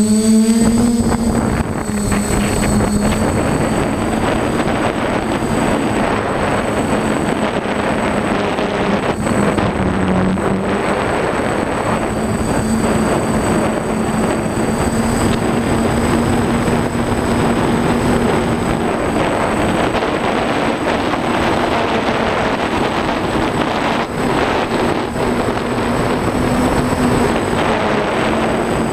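DJI F550 hexacopter's six electric motors and propellers spooling up at take-off, the pitch rising quickly in the first second, then running in a steady hum as it climbs, with a constant rush of wind and propeller wash on the onboard camera's microphone.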